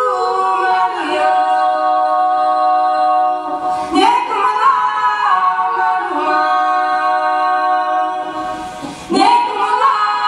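Music: a choir of voices singing long held chords with no instruments, sliding into new chords about four seconds in and again near nine seconds.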